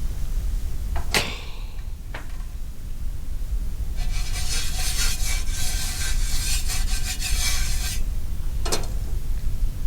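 Something scraped and rubbed against a dosa pan for about four seconds, starting about four seconds in and stopping abruptly, with a few short knocks before it and one near the end, over a low steady hum.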